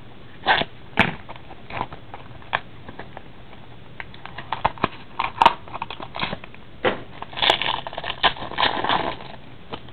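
Clear cellophane wrapper of a trading-card pack crinkling and tearing as it is stripped off by hand. Scattered crackles come at first, growing into a denser run of crinkling in the second half.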